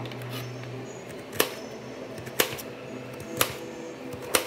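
Kitchen knife slicing a peeled potato into rounds, the blade clicking on a stainless steel plate with each cut, four cuts about a second apart.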